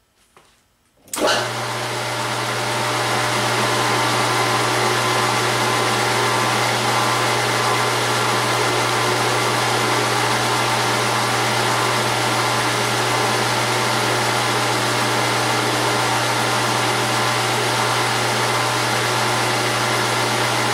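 Gear-head metal lathe starting up about a second in, then its motor and headstock gears running steadily with a strong low hum and a gear whine. The spindle is set to 300 on the speed dial and turns at about 345 rpm by the tachometer.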